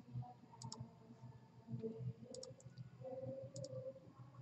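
Computer mouse clicking three times, each click heard as a quick press-and-release pair, over a faint steady hum.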